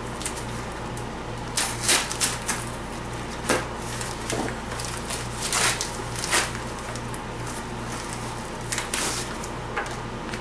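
Padded paper mailer envelope being torn open and handled: short, irregular crinkling and tearing rustles, with a steady low hum underneath.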